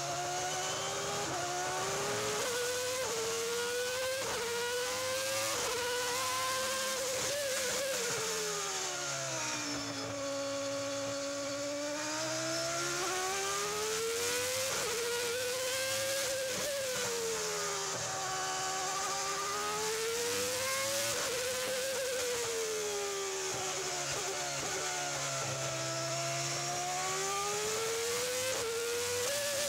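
Williams-Renault Formula One car's V10 engine heard from on board at racing speed: the revs climb in steps as it shifts up through the gears, then fall away as it brakes and shifts down for corners, and climb again, several times over.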